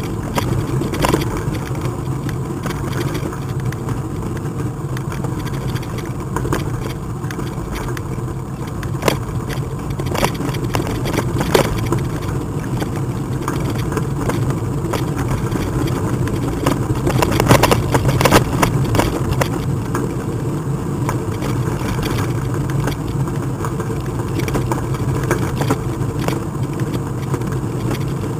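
Riding noise from a bike rolling along a paved path: a steady rumble with frequent small rattles and knocks, and a cluster of louder knocks about two-thirds of the way through.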